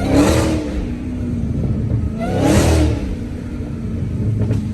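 Supercharged Hellcat Hemi V8 revving up hard and dropping back twice, about a quarter second in and again about two and a half seconds in, over a steady engine drone.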